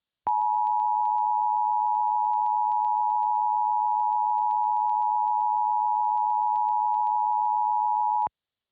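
Emergency Alert System attention signal: a steady two-tone alarm held for about eight seconds that starts and cuts off abruptly.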